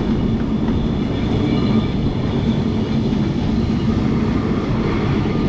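Carris Remodelado heritage tram running along the street, heard from inside the car: a loud, steady running noise of its motor and wheels on the rails.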